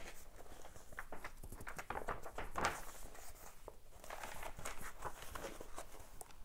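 Faint rustling with scattered light clicks, as of a book's paper pages being handled.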